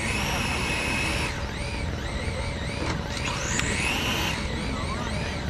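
High-pitched electric motor whine from an RC drag car. It holds steady for about a second, then wavers up and down in quick pulses, climbs again about three and a half seconds in, and goes back to pulsing, as the throttle is worked while the car is readied.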